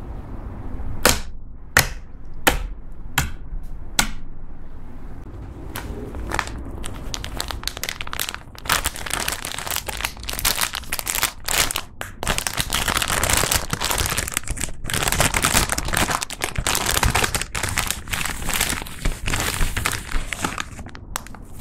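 A handful of sharp clicks in the first few seconds, then continuous crinkling and rustling of a clear plastic bag stuffed with gold foil flakes as hands squeeze and dig into it.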